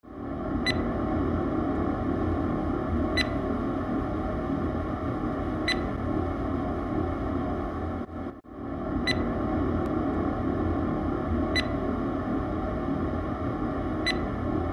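Radio static hiss with a short, high beep about every two and a half seconds, a space-radio sound effect; the hiss drops out briefly a little past halfway, then carries on with the same beeps.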